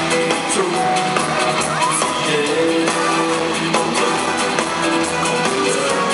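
A male singer performs a pop-rock song live, singing over loud, steady band backing.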